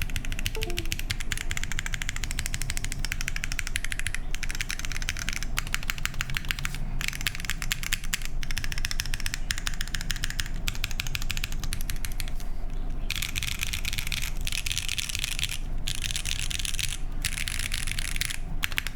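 Fast typing on a custom mechanical keyboard with lubed and filmed Tecsee Purple Panda tactile switches on an aluminium plate, under GMK keycaps: rapid runs of keystroke clacks with short pauses every second or so.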